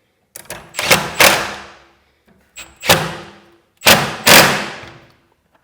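Cordless Milwaukee M12 impact wrench driving the screws of a garage door hinge, in three short runs of hammering, each trailing off.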